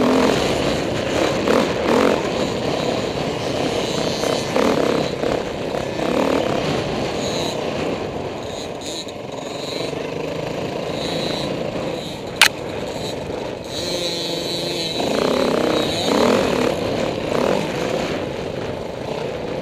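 Dirt bike engine heard from on the bike, revving up and easing off as the throttle opens and closes around a motocross track. A single sharp click about twelve seconds in.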